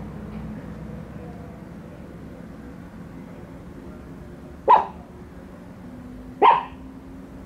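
Two sharp single barks from a small dog, about two seconds apart in the second half: wary barks at an unfamiliar toy dog.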